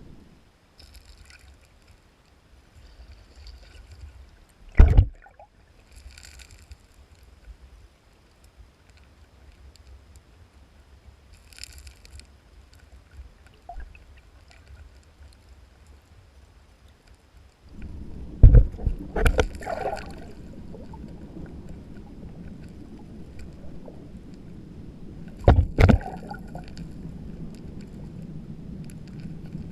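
Water sloshing and gurgling with a low rumble, broken by a few loud thumps: one about five seconds in, a cluster of several later on, and a pair near the end.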